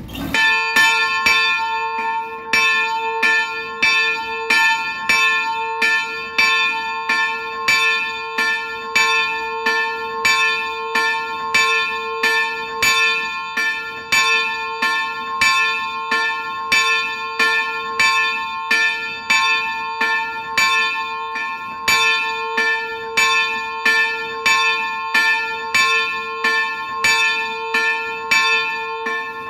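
A single bronze church bell, cast by Nuspicher in the early 18th century, swinging and ringing in full peal. Its clapper strikes a little more than once a second in an even rhythm, and each stroke rings on into the next.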